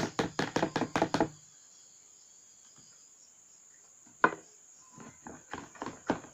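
A fast, even run of sharp taps or clicks, about six a second, that stops about a second in. One single sharp tap follows a few seconds later, and a looser run of taps starts near the end. A faint steady high whine runs underneath.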